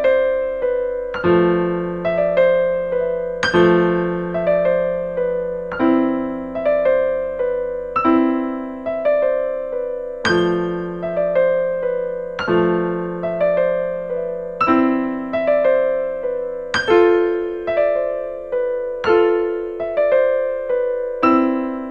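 Background piano music: slow, gentle broken chords, each note ringing and fading, with a new chord about every two seconds.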